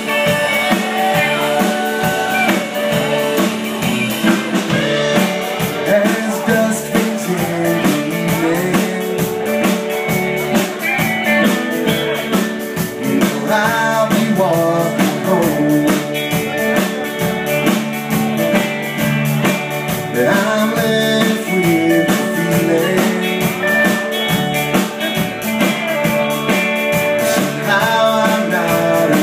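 Americana band playing live on electric and acoustic guitars over a drum kit, with a lead melody that bends and slides in pitch over a steady beat.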